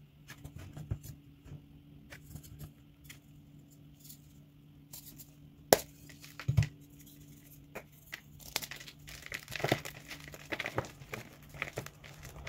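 Dyed SPRI gym chalk blocks breaking by hand: scattered small crisp cracks, then one sharp snap about six seconds in as a block splits. In the last few seconds there is dense crunching as the pieces are crumbled between the fingers.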